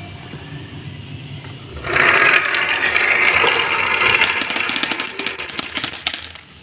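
Marbles rolling and clattering along a marble run. The sound is quiet at first; about two seconds in it becomes a loud, dense rattle of rapid clicks that lasts about four seconds.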